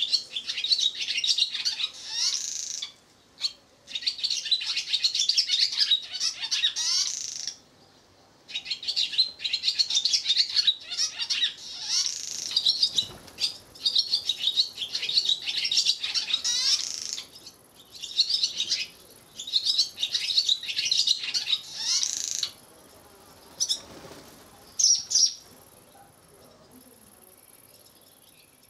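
Swallows twittering in bouts of rapid, high chirps a few seconds long with short gaps between them. The twittering dies away about three-quarters of the way through, leaving a few brief calls.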